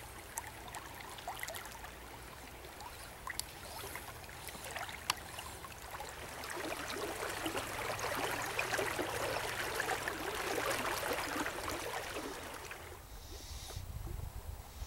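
Shallow creek running over a gravel riffle: a steady burble of moving water that grows louder about midway and drops back near the end, with a few faint clicks.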